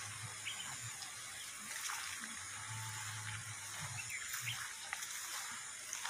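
Faint, short bird chirps now and then over a steady outdoor hiss, with a low hum coming and going.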